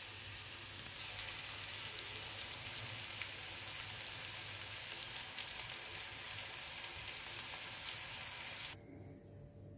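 Battered crab sticks shallow-frying in hot oil in a small pan: a steady sizzle with scattered sharp pops. It cuts off suddenly near the end.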